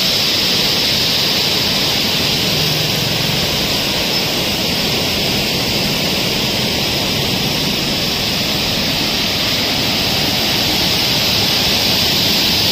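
Loud, steady rush of water pouring out under the raised sluice gates of a dam, released under heavy pressure.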